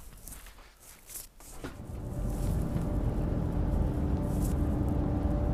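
Headphones being handled, with a soft click about a second in. From about two seconds a low, steady car-like rumble with a held low hum fades in and keeps going.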